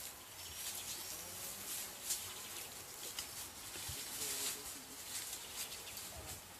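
Faint, scattered chirping animal calls over a steady outdoor hiss.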